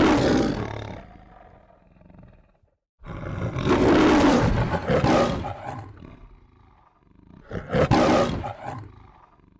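Three loud bursts of noise, each starting suddenly and fading away over one to two seconds, with dead silence around them: sound effects laid on in editing rather than the sound of the table.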